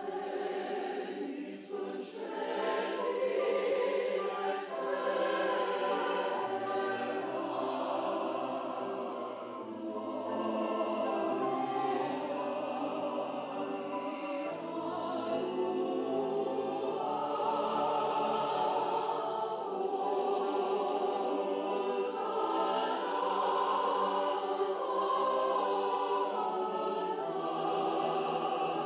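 Mixed choir of men's and women's voices singing a slow choral piece in held, sustained chords that shift every second or two.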